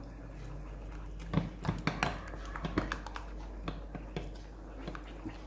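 Wooden spoon beating thick melted chocolate in a glass bowl, giving irregular light taps and scrapes against the glass. The chocolate has tightened after milk was added and is being beaten smooth.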